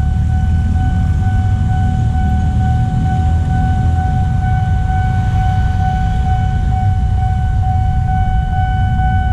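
Railway level-crossing warning alarm sounding a steady high electronic tone, warning that the barriers are down for a train, over the low rumble of motorcycles and traffic.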